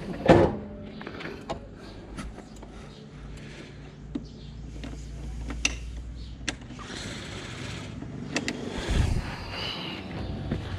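Yamaha XMAX 300 scooter's single-cylinder engine running at a steady low idle, with a loud knock at the start and scattered light clicks of handling.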